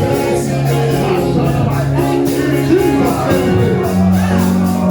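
Church worship music: held bass notes that change every second or two under a steady drum beat, with voices singing over it.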